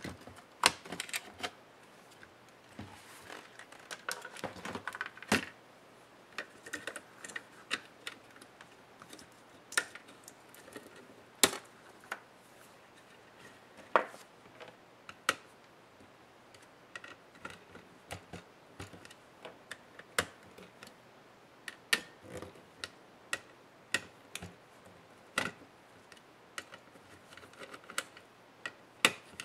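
Irregular sharp clicks and light knocks of hard plastic and metal laptop parts being handled, taken apart and set down on a work table, with small screwdrivers picked up and put down. This is a Lenovo ThinkPad E550 motherboard and its cooling fan assembly being disassembled.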